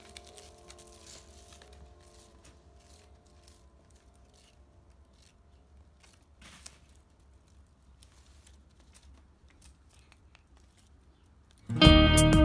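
Faint scattered rustles and light ticks of kittens scrabbling and pawing on artificial turf. The last notes of background music fade away over the first few seconds. Loud guitar music comes in suddenly near the end.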